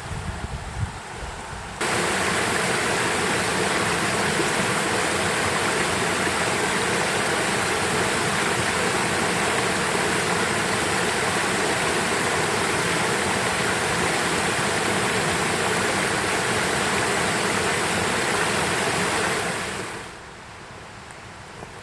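Rushing water of a mountain stream, a steady full hiss that cuts in suddenly about two seconds in and fades away shortly before the end.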